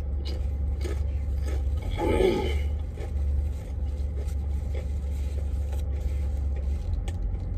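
Semi truck's diesel engine idling, a steady low rumble heard from inside the cab. A brief mouth sound about two seconds in.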